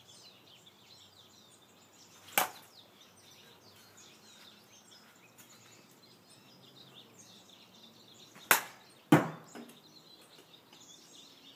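Hollow plastic toy bat smacking a ball: three sharp knocks, one about two seconds in and two close together near the end.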